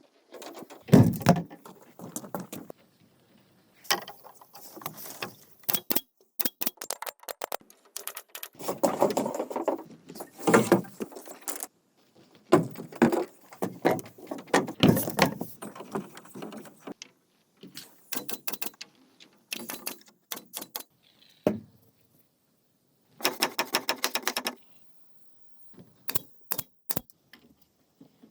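Bamboo being worked by hand: irregular knocking, scraping and clattering in bursts with short pauses, and a quick run of even clicks near the end.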